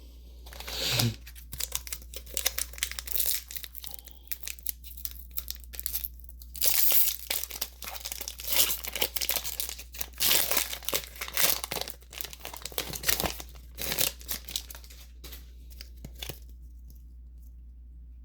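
Foil Pokémon booster pack wrapper being torn open by hand and crinkled, a dense run of tearing and rustling that stops about two seconds before the end.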